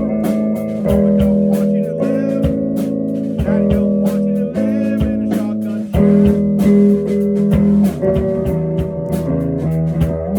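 Band music led by guitar, with bass holding sustained notes that change every second or two, and drums keeping a steady beat.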